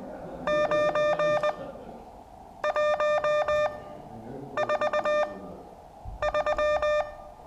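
Morse code tone of about 600 Hz, keyed in four short groups of dots and dashes with a pause of about a second between groups. It is copy practice in which an H (four dots) is slipped in among 5s (five dots).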